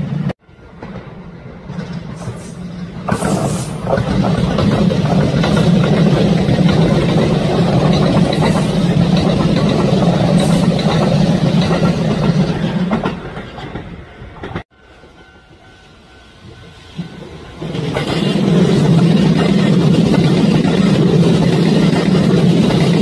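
Kintetsu electric train passing close by, its wheels running on the rails. The sound builds over a few seconds, holds loud and steady, then fades. It cuts off abruptly about two-thirds of the way through and builds again to full loudness near the end.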